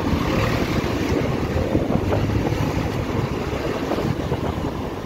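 Wind rushing over the microphone of a moving motorcycle, mixed with the bike's engine and road noise in city traffic.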